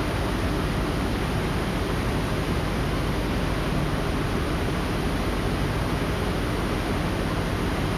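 A pair of 380 V three-phase vibration motors with eccentric weights, running on a machine frame: a steady, loud, even noise with no clear pitch and no change in level.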